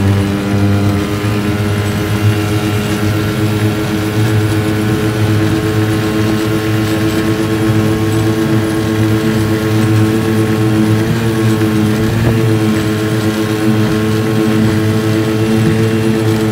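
Modified 5 hp two-stroke outboard motor running flat out at a steady pitch. The motor is ported, with a high-compression head and raised port heights to lift its rpm.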